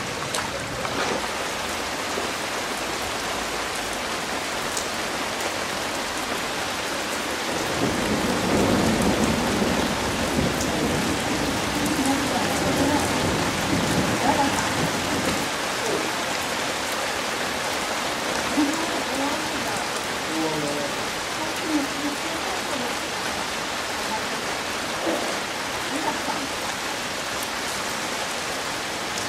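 Heavy rain falling steadily. A low rumble of thunder swells in about eight seconds in and dies away about halfway through.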